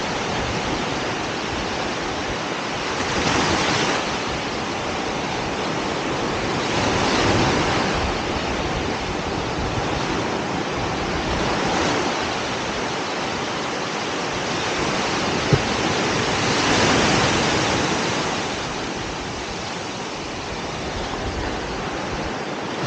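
Ocean surf washing onto a sandy beach: a steady rush of water that swells as a wave breaks every four or five seconds.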